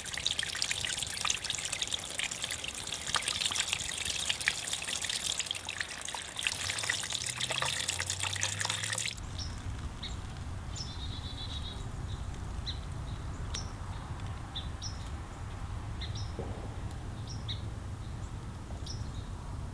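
Water running and splashing through a newly laid channel drain, a flow test of its slope. About nine seconds in the water noise cuts off suddenly, leaving birds chirping over a low hum.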